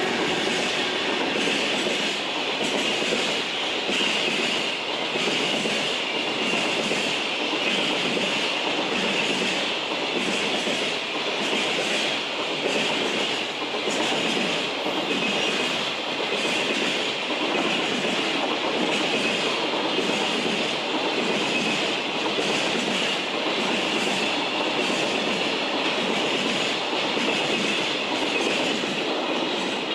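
A long freight train passing through a station at speed, its wagon wheels running steadily on the rails with a regular clickety-clack over rail joints.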